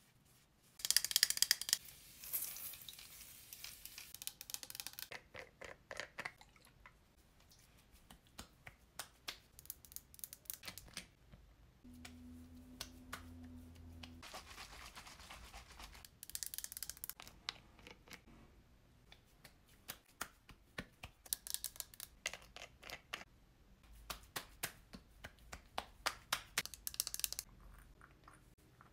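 Skincare bottles, caps and applicators being handled and used: repeated small clicks and taps, with a few short hissing or rubbing bursts, the loudest about a second in.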